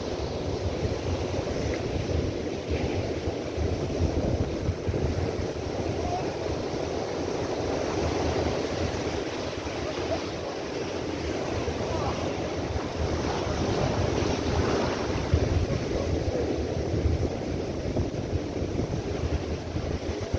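Rough sea surf breaking and washing in over rocks in steady surges, with wind buffeting the microphone.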